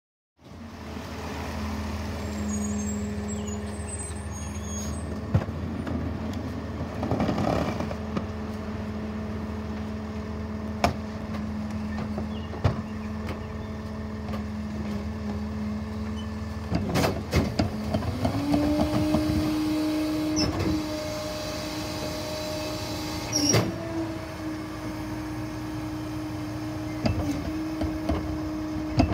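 Diesel engine of a Peterbilt garbage truck with a Leach rear-loader body running steadily, then stepping up to a higher speed about two-thirds of the way through as the hydraulic cart tipper works. Several sharp metal clanks and bangs come from the cart and the hopper.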